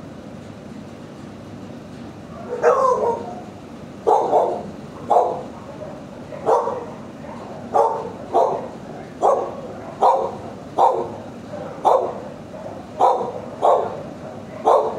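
A dog barking repeatedly in a shelter kennel, about one bark a second, starting a couple of seconds in.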